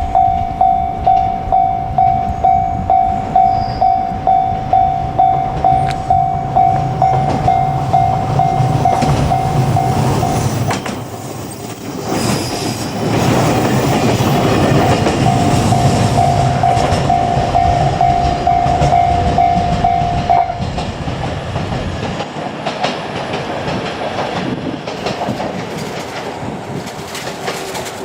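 Level crossing warning bell ringing about twice a second while JR Kyushu 817 series electric trains run past with a heavy low rumble. The bell breaks off about ten seconds in, rings again a few seconds later, and stops about twenty seconds in as the train sound eases.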